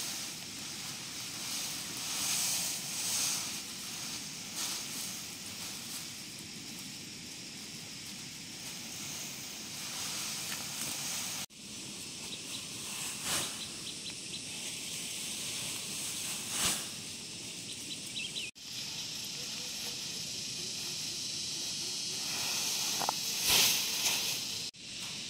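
Tall grass and dry stalks rustling and swishing as they are pulled and gathered by hand, in several louder bursts over a steady hiss.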